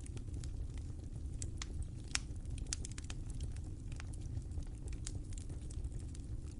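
Wood fire crackling: irregular sharp snaps and pops over a low steady rumble of burning, with one louder pop a little after two seconds in.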